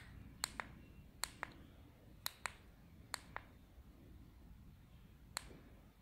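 Plastic button clicks from an e-bike LCD display's control buttons being pressed: four quick pairs of clicks, then a single click near the end, as the display's settings are stepped through.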